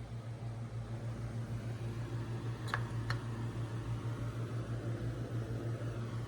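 Steady low hum of a small electric motor, like a fan, pulsing evenly, with two light clicks close together about three seconds in.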